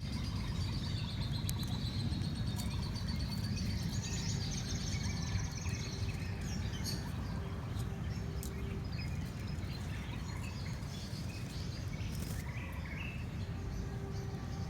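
Birds chirping faintly in thin high calls over a steady low background rumble, with a few scattered clicks.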